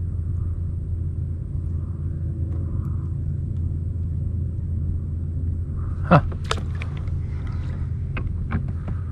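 Steady low rumble, with a sharp knock about six seconds in and several lighter clicks after it, from fishing gear being handled in a plastic kayak.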